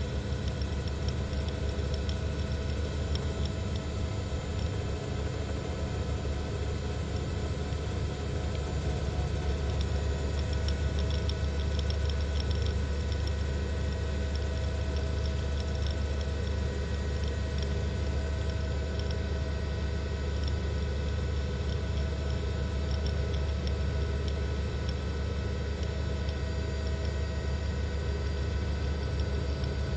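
Steady mechanical drone: a constant low rumble with several fixed steady tones layered over a hiss, unchanging throughout, with no bangs or explosions.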